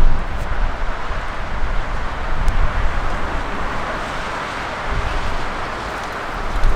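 Steady roar of a jet airliner's engines, with gusts of wind buffeting the microphone as low rumbles at the start, about five seconds in and near the end.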